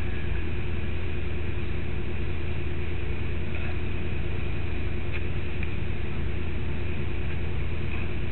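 A steady low mechanical hum and rumble that does not change.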